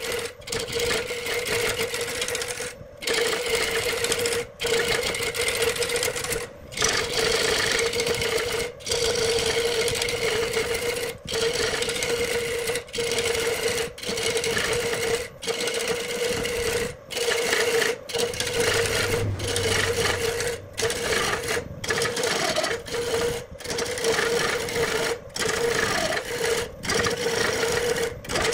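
Wood lathe spinning a large wooden blank while a turning gouge cuts into it: a steady hum with a scraping, shaving noise over it, the sound breaking off for an instant every second or two.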